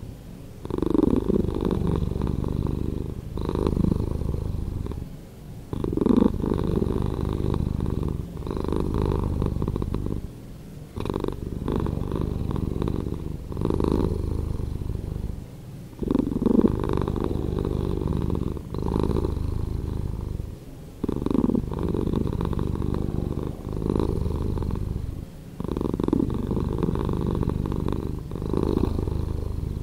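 A cat purring, slowed down, in a steady rhythm of drawn-out breaths about two seconds long, each followed by a short dip.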